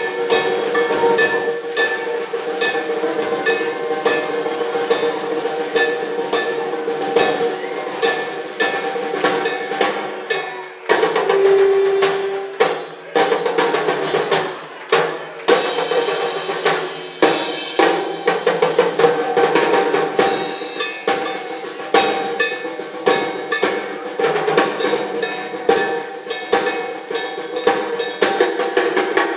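Drum kit solo played live: fast, dense snare, bass-drum and tom strokes with cymbals ringing over them, and a brief break about eleven seconds in.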